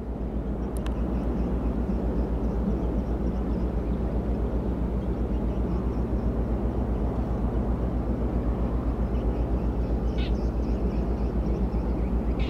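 Container ship Manet's engine and propeller running under way, heard as a steady deep rapid throb that grows slightly louder as she passes.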